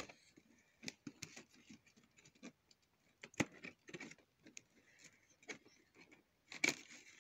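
Fingers and nails tapping, scratching and picking at a cardboard figure box as it is opened: scattered faint clicks and scrapes, with a sharper knock about three and a half seconds in and another near the end.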